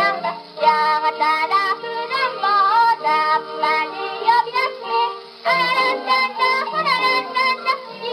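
A 78 rpm record of a Japanese children's song playing acoustically on an HMV Model 102 wind-up portable gramophone: a female singer with accompaniment. The sound is thin, with no deep bass and no highs, over the fine crackle of the record's surface.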